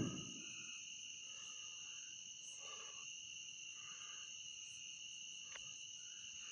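Steady high-pitched insect chorus. At the very start the tail of a loud bang dies away, one of the unexplained banging noises that doesn't sound like fireworks.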